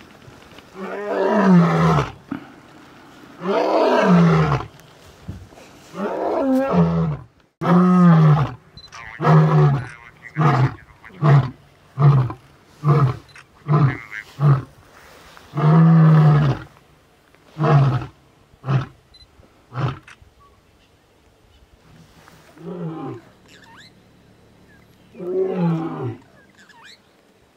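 Male lion roaring: a few long, deep moaning roars that build into a run of short grunting roars, about three every two seconds. After one more long roar, a few spaced grunts follow, and two fainter ones come near the end.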